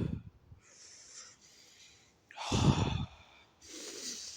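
A man taking deep breaths close to the microphone, without words. Two loud breaths, one at the start and one a little past halfway, blow on the microphone, with softer breaths in between and near the end.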